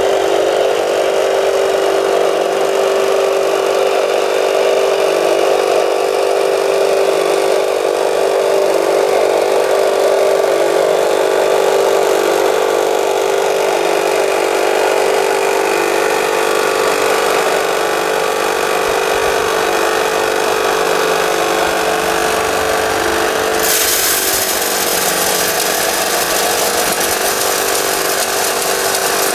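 Radio-controlled Volvo L250G model wheel loader's motors whining steadily while it drives and works its bucket. About 24 s in, a harsher rattling hiss sets in from the model vibrating screen shaking and sifting gravel.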